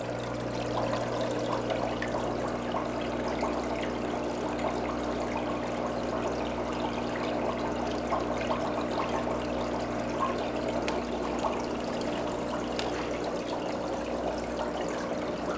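Reef aquarium's water circulation: a steady trickle of moving water over a low, steady hum.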